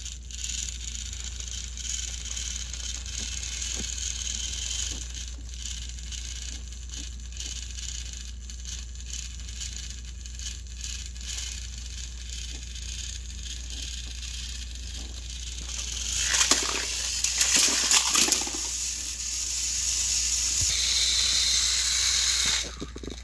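Motors of battery-powered Thomas & Friends toy engines running as two coupled engines push against each other on plastic track, a steady whirring and rattling with a low hum underneath. About two thirds of the way through the noise grows louder and rougher for a few seconds, and near the end a steady high whine joins in.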